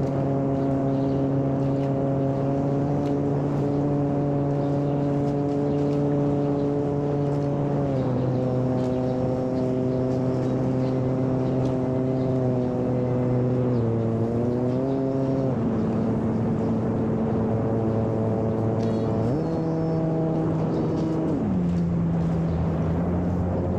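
Electric motor and propeller of a homemade radio-controlled seaplane in flight, a steady pitched drone. The pitch steps down as the throttle is eased about eight seconds in, dips and climbs again around fourteen seconds, and changes several more times near the end.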